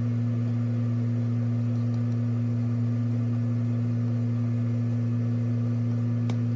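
Steady low electrical or machine hum made of two strong low pitches that hold unchanged, with no other distinct sound standing out.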